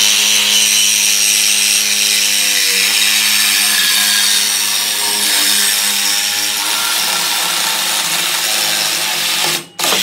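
Handheld power cutting tool running steadily under load, cutting through the truck's steel exhaust pipe to take out the muffler for a muffler delete. It wavers briefly about three seconds in and cuts off near the end.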